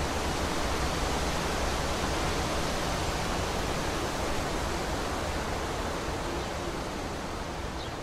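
Steady, even rushing noise of outdoor ambience, easing slightly near the end.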